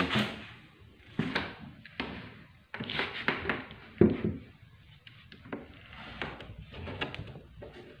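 Plywood door with a concealed door closer being swung open and handled: a string of wooden knocks and scrapes, with the sharpest knock about four seconds in.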